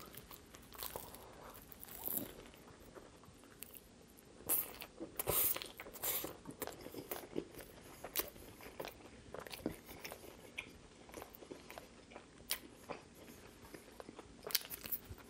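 Close-miked biting and chewing of a BBQ chicken sub with lettuce, pickle and crispy onions: a bite, then crunching chews with scattered sharper crackles, busiest around four to six seconds in.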